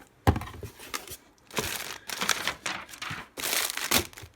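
Packaging crinkling and rustling in irregular bursts as a shipping box of cosmetics is unpacked, with a sharp knock about a quarter second in and the loudest rustle near the end.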